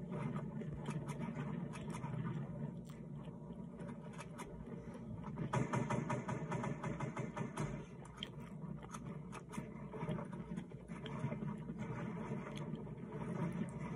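A person chewing an egg roll close to the microphone, with many small mouth clicks and crunches over a steady low background hum.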